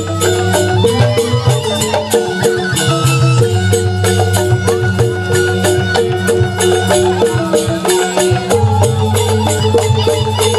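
Balinese joged bumbung gamelan playing an instrumental tabuh petegak: bamboo grantang xylophones struck in fast interlocking patterns, with kendang drums, small cymbals and bamboo suling flutes over a steady low bass. The low bass thins out briefly about two seconds in and again about eight seconds in.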